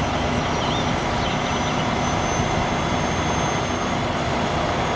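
Steady, unbroken engine noise, a constant mechanical running sound with no starts or stops.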